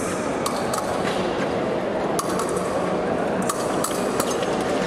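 Épée blades clinking against each other several times at irregular moments, sharp metallic contacts during a fencing exchange, over a steady hum of hall noise.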